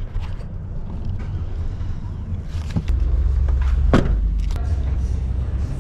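Low steady rumble, heavier from about three seconds in, with a few knocks; the loudest knock, about four seconds in, comes as a pickup truck's door is shut.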